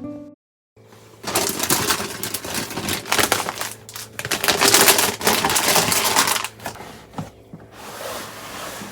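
Rapid, dense clicking and clattering of small hard objects being handled, lasting about five seconds and then thinning out to lighter clicks.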